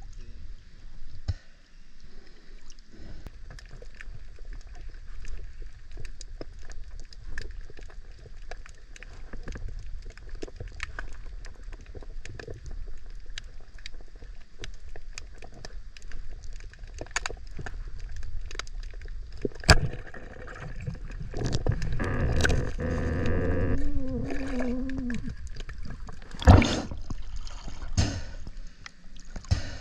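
Water sounds heard around an action camera as a spearfisher dives: a steady crackle of small clicks over a low underwater rumble. A louder stretch of sloshing and gurgling begins about two-thirds of the way through, and a sharp splash comes near the end as the camera returns to the surface.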